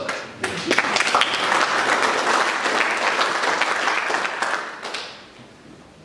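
Audience applauding: many hands clapping together, starting about half a second in and dying away about five seconds in.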